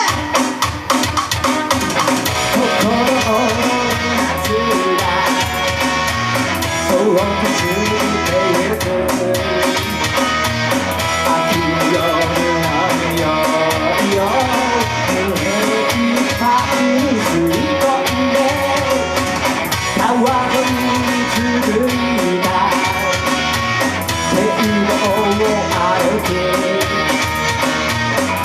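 Rock band playing an instrumental passage: electric guitar lead with bent notes over bass and a drum kit.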